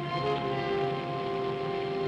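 Orchestral background music holding sustained chords, with new notes entering just after the start.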